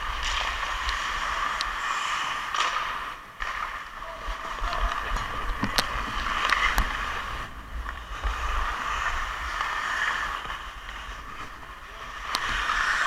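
Ice hockey skate blades scraping and gliding on the ice, heard as a steady hiss with low wind rumble on the moving camera's microphone, broken by a few sharp clicks and knocks of sticks and puck.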